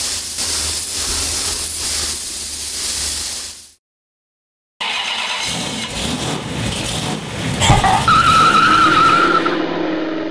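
Steady loud spray-gun hiss that cuts off after about three and a half seconds. After a moment of silence comes a car-sound effect: an engine revving, then a tyre squeal held for over a second, then the engine running on.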